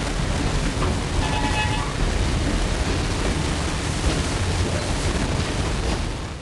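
Diesel-electric locomotive running past hauling passenger carriages: a steady, loud, noisy rumble, with a short higher-pitched tone about a second in.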